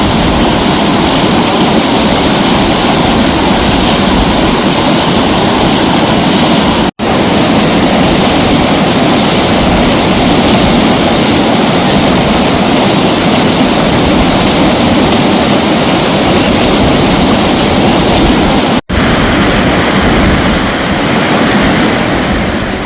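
Loud, steady rushing of white water on a river wave. The sound cuts out for an instant twice, about 7 and 19 seconds in.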